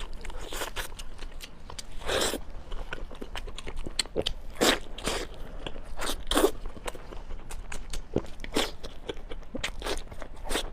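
Close-miked eating: repeated crunchy bites and chewing, in irregular clicks and crackles with a few louder crunches.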